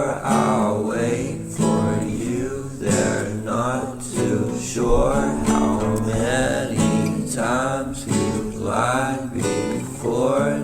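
Background music: a pop song with strummed acoustic guitar and a singing voice.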